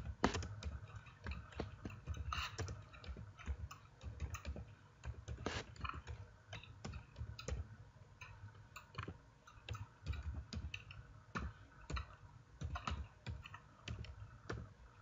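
Computer keyboard typing: irregular keystroke clicks as a command is typed out, over a low steady hum.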